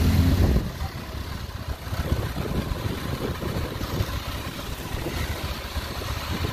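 Motorcycle engine running while riding along a street. The engine drone is loudest in the first half-second, then gives way to a rougher, uneven low rumble.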